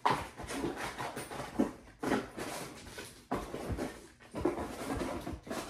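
Hands rummaging through a container of small parts: irregular rustling and shuffling, with a few light knocks as items are moved.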